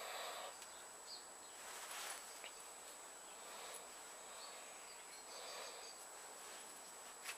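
Faint handling sounds of thin wire being wound around itself to fasten a pair of metal tension springs. There are soft rustles and a few small ticks, with a sharper tick near the end, over a steady hiss and a thin, high, steady whine.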